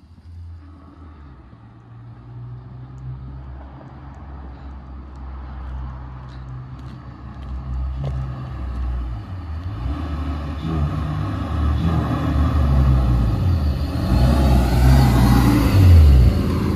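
Supercharged BMW E46 driving up close, its engine and supercharger getting steadily louder as it nears, with a rising whine in the last few seconds.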